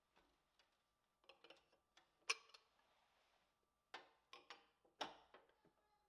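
Faint scattered clicks and light knocks of objects being handled and set down on a wall shelf during dusting, the sharpest knock a little over two seconds in.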